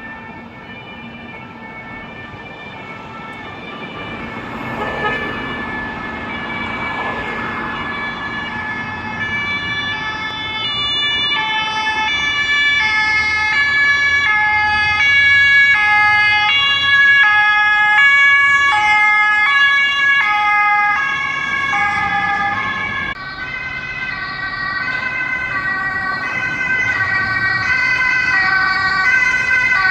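Police two-tone siren (German Martinshorn) alternating between two pitches, coming in about a third of the way in and running on. The sound changes abruptly about three-quarters in, where the siren's pitches shift.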